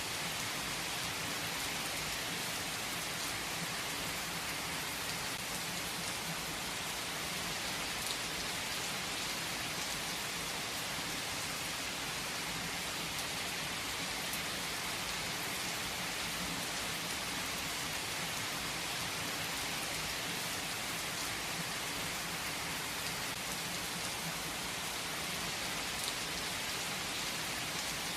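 Steady rain falling: an even hiss of many drops, with a couple of sharper single drop ticks standing out.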